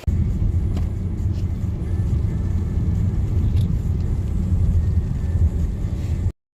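Steady low rumble of a car on the road, heard from inside the cabin, with a few faint clicks; it cuts off suddenly near the end.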